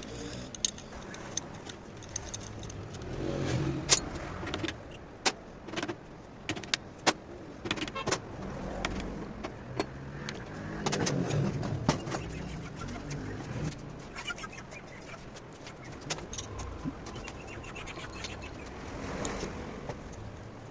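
Irregular sharp metallic clicks and knocks, some loud, over a low steady rumble.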